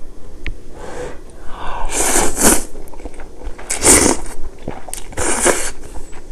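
Loud slurping of wheat noodles drawn into the mouth from a pot of soup, in several airy slurps: two close together about two seconds in, one around four seconds, and one more near the end.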